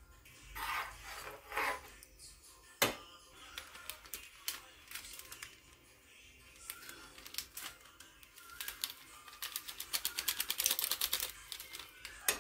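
Thin plastic spice sachet crinkling and crackling as it is handled and opened. There are scattered single clicks at first, then a fast run of crackles a few seconds before the end.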